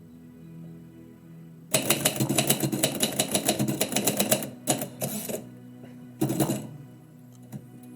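Typewriter keys striking in a rapid run of clacks for about three seconds, then two shorter bursts of typing, over quiet background music.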